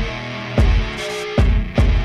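Background rock music with a steady, heavy drum beat.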